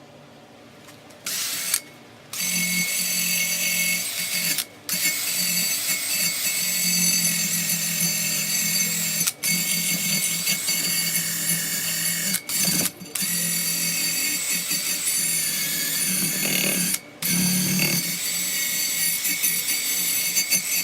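Rotary power tool cleaning a pitted metal boat seat post clamped in a vise. It starts about a second in and runs in long stretches, broken by about five brief stops.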